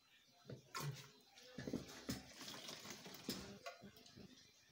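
Handling noise from a plastic jerrycan and a metal hurricane lantern being moved about on a tiled floor: irregular knocks and clatter, starting about half a second in.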